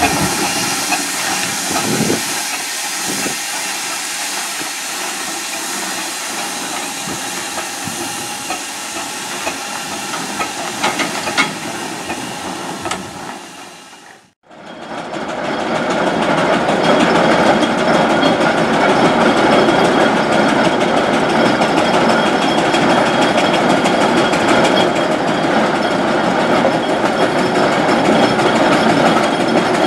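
A steam roller hissing steadily from its steam, with a few light clicks, until the sound drops out sharply about halfway through. It is followed by a louder, steady noise of a steam roller travelling on the road with motor vehicles close behind it.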